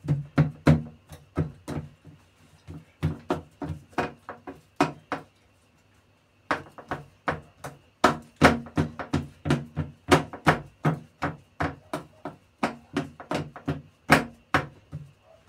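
Hands pressing and patting pizza dough flat in a metal baking tray, making a quick run of sharp knocks, about two or three a second, with a short pause about five seconds in.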